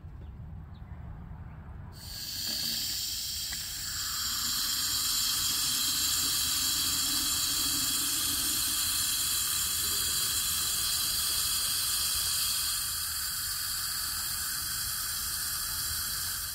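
Garden-hose spray nozzle shooting a stream of water into a foam cannon bottle of car soap, the soap foaming up: a steady hiss that starts about two seconds in and stops suddenly at the end.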